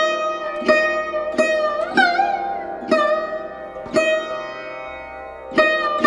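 Background music on a plucked string instrument: single notes struck about once a second, each ringing and fading, some bending in pitch as they sound.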